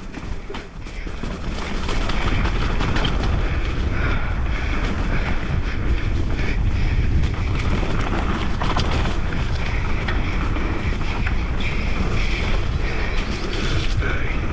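Wind rushing over a GoPro microphone on a mountain bike at speed down a dirt trail, a heavy rumble that gets louder about two seconds in, with knocks and rattles from the bike over rough ground.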